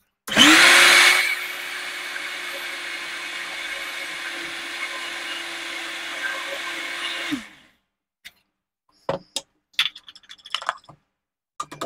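Electric mixer-grinder (mixie) running with a jar of soaked urad dal, grinding it to a smooth batter. It starts loud for about the first second, runs steadily with a constant motor hum for about seven seconds, then switches off and winds down. A few short knocks follow as the jar is lifted off the base.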